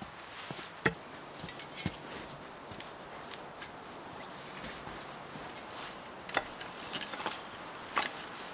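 Footsteps crunching in snow and firewood pieces being handled, with scattered sharp knocks, the loudest about a second in and near the end.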